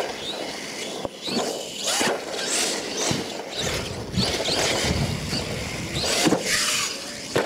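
Radio-controlled monster truck driving on a dirt track: its motor whining up and down with the throttle over tires scrabbling on dirt, with a few sharp knocks.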